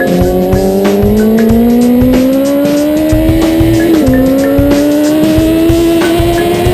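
2009 Kawasaki ZX-10R's inline-four engine accelerating hard under full throttle, its pitch climbing steadily. About four seconds in it drops at an upshift, then climbs again.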